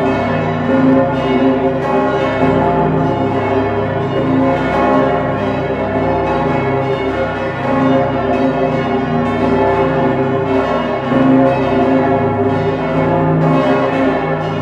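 Full peal of St. Stephen's Cathedral's swinging bronze church bells, the 1960 Pfundner bells together with the Pummerin, heard from inside the bell chamber. Many bells strike at irregular, overlapping intervals, with a dense, loud ringing over a deep hum.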